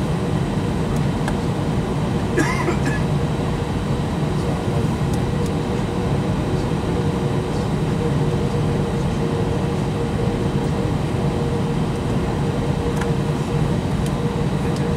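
Airbus A320's IAE V2500 turbofan engines running steadily at low power, a constant hum and whine heard through the cabin wall. A single short click sounds about two and a half seconds in.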